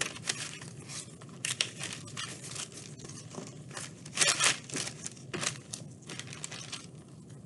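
Crinkling and rustling of a sheet of paper and gloved hands as small sticky clay pieces coated in gold leaf are pressed and gathered together, in irregular crackly bursts, loudest a little past the middle.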